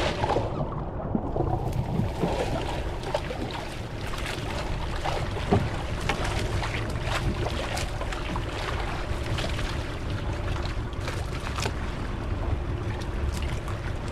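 Small fishing boat at sea: a steady low rumble with wind on the microphone and the wash of water, broken by a few scattered knocks.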